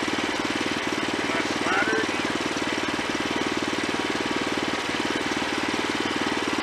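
Wood-Mizer LX25 sawmill's engine running steadily with a fast, even beat.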